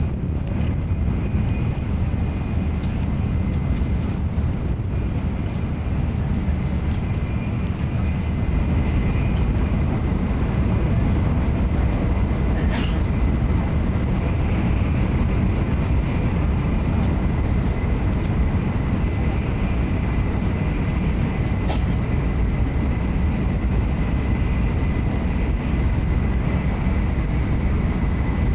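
Interior of a Nozomi Shinkansen bullet train running at speed: a steady low rumble with a faint high whine above it, and two brief clicks, about 13 and 22 seconds in.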